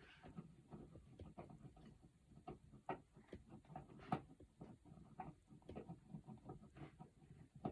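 Faint, irregular small clicks and scrapes of a screwdriver backing out the mounting screws of a wall outlet.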